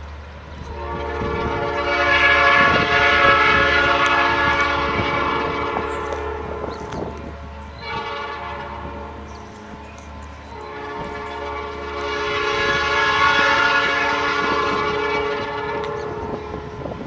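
Air horn of an approaching Norfolk Southern GP59 diesel locomotive sounding in long drawn-out blasts. It swells loud about three seconds in, eases off with a lull around ten seconds, then swells again near thirteen seconds.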